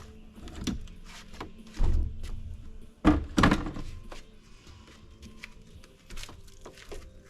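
Plastic knocks and thunks from a Nature's Head composting toilet being taken apart for emptying: a low thump about two seconds in, then a loud double knock about a second later, with scattered small clicks and rattles.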